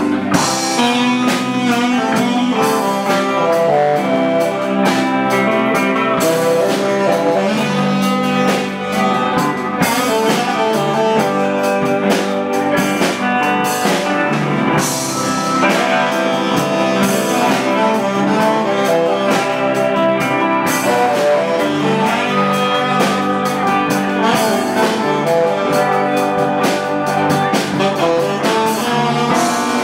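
Live blues band playing, with guitar, drum kit and a saxophone playing melody lines over them.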